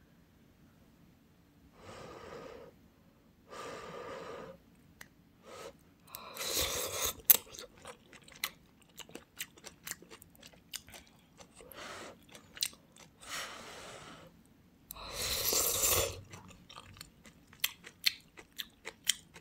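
A person eating kimchi ramen porridge from a spoon: wet chewing and small mouth clicks, broken by about five louder noisy slurps of roughly a second each.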